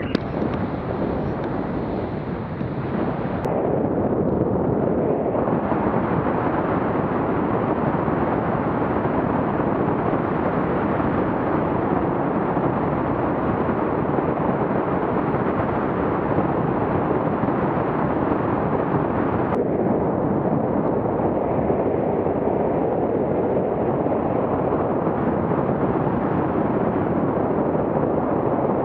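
Loud, steady rush of airflow buffeting the microphone of a boom-mounted action camera during a paragliding flight, with no let-up.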